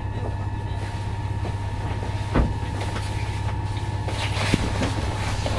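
Electric commuter train's traction motors heard from inside the carriage while running: a steady low drone with a constant whine over it, which stops near the end. There is a single thump about two and a half seconds in.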